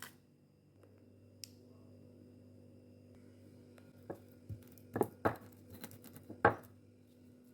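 A handful of sharp knocks and clatters from kitchen handling, bunched between about four and six and a half seconds in, the last one the loudest, over a steady low hum.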